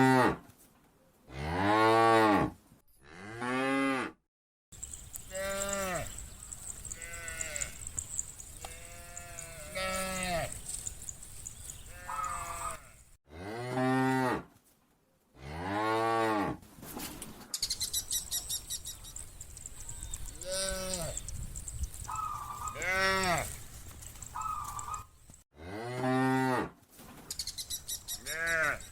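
A herd of cattle mooing over and over, one long call after another, some deep and some higher-pitched, about a dozen in all.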